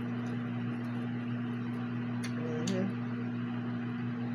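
A steady low hum with a hiss of room noise, a couple of faint clicks, and a brief faint murmur of voice about two and a half seconds in.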